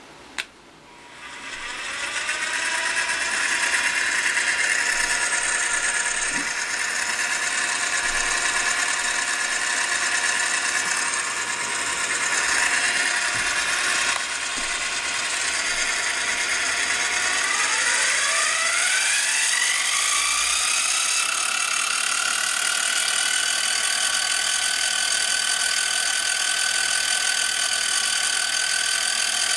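A click, then the PM-25MV milling machine's spindle motor spinning up and running with a steady whine. About 17 seconds in its pitch rises over a few seconds as the spindle speed is turned up, then holds at about 2,600 rpm.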